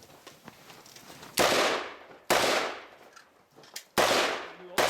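Four gunshots, each with a ringing echo tail: the first about a second and a half in, the next two roughly a second apart, and the last two closer together.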